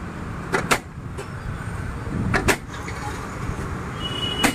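Hand-press plastic vegetable chopper slammed down through its blade grid to dice onion, three times. Each press gives a pair of sharp plastic clacks.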